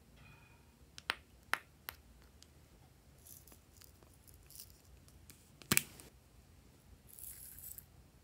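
Small plastic handling sounds: a few sharp clicks and taps about a second in, then the loudest click as a plastic egg-shaped container is snapped open, followed near the end by a short rustling hiss of loose glitter poured onto slime.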